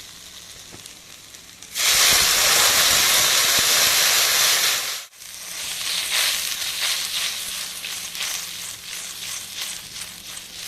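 Spices and paste sizzling in hot oil in a pan; about two seconds in, water poured in sets off a loud hiss of steam lasting about three seconds. It cuts off abruptly, and a spluttering sizzle with many small crackles follows.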